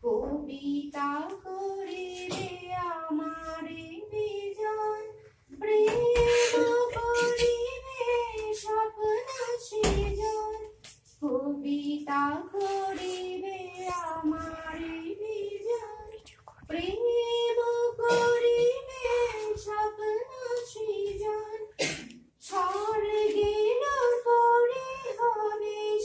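A woman singing unaccompanied, in a small room: held notes that step up and down, in sung lines of about five seconds with short breaths between them.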